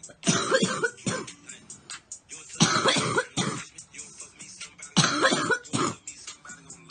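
A young woman coughing in three bouts about two and a half seconds apart. Each bout is two or three hacking coughs in quick succession.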